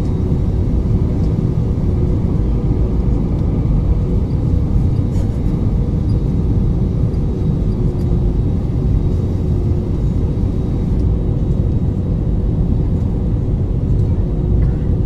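Steady low rumble of a jet airliner's engines and rushing air, heard inside the passenger cabin on the approach to landing, with a faint steady hum underneath.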